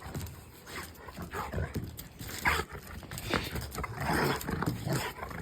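Rottweiler dogs making short, irregular noises while playing rough, the sharpest about two and a half seconds in.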